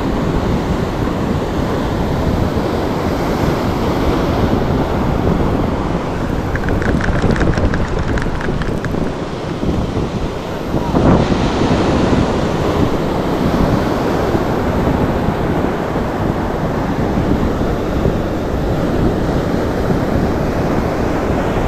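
Wind buffeting the microphone over the steady wash of surf breaking on the shore, with a short run of rapid ticks about seven seconds in.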